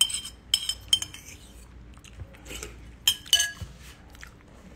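Metal spoon clinking against a bowl while eating: several quick clinks with a short ring in the first second, then two more a little past three seconds in.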